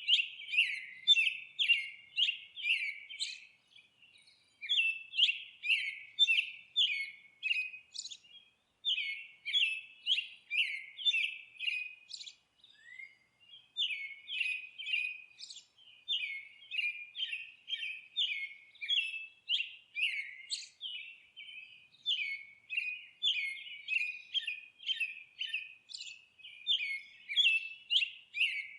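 Songbird chirping: a steady run of short, sharp chirps, about three a second, with brief pauses about 4 and 9 seconds in.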